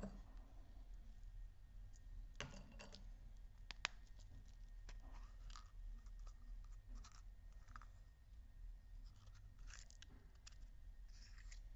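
Faint clicks and scratching of a plastic surprise-egg toy capsule being handled and pulled open, with one sharp click about four seconds in.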